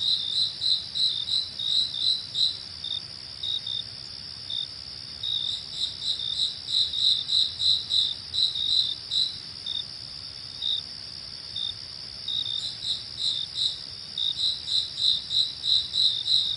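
Crickets chirping in quick, repeated pulses over a steady high-pitched insect drone; the chirping thins out for a few seconds in the middle and then picks up again.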